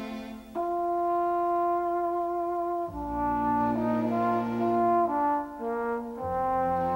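Orchestral film score with brass: a single horn-like note is held for a couple of seconds, then lower brass chords come in underneath and shift every second or so.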